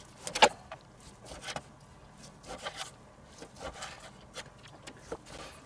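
Large chef's knife sawing strips off a slab of bacon on a wooden cutting board: faint scraping strokes of the blade, with a sharp tap about half a second in.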